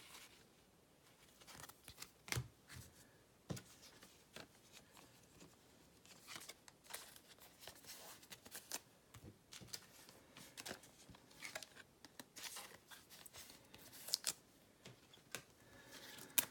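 Baseball trading cards being handled and flipped through by hand: faint, irregular clicks and rustles of card stock sliding and snapping against cards, with a few sharper snaps.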